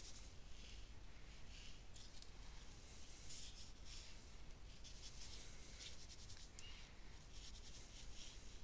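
Faint, soft brushing of a paintbrush dabbing and stroking ink onto fabric, in a few irregular light strokes.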